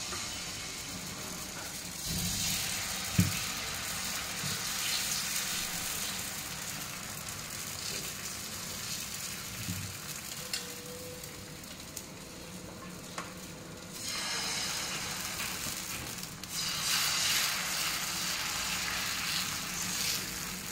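Dosa batter sizzling on a hot tawa as it is poured and spread in circles with a ladle, a steady hiss that grows louder in the last few seconds. A single sharp tap comes about three seconds in.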